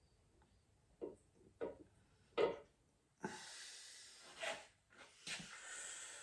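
A few short knocks and handling noise, with stretches of soft hiss, as a crankshaft is lowered into a small-block Chevy's main bearing saddles; the loudest knock comes about two and a half seconds in.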